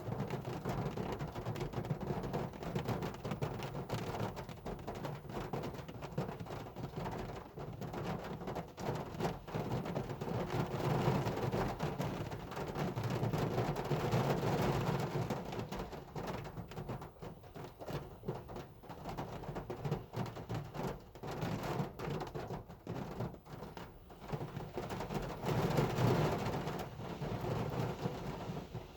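Hard rain drumming on a car, a dense patter of many individual drop hits that swells louder in the middle and again near the end.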